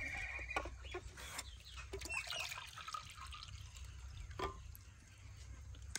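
Water faintly trickling and dripping into a bowl, with a few light clicks.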